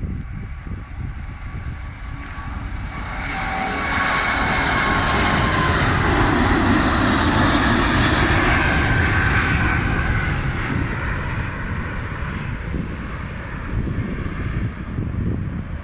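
Airbus A380's four turbofan engines at takeoff thrust, passing by: a low rumble swells to a loud rush with a high whine about six to nine seconds in, the whine falling slightly in pitch, then fades back to a low rumble.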